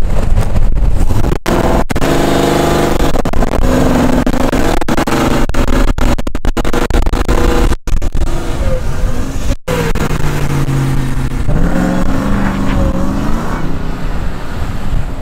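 Diesel pickup truck engine revving hard. Its pitch climbs twice, and the sound has several brief, sudden cut-outs.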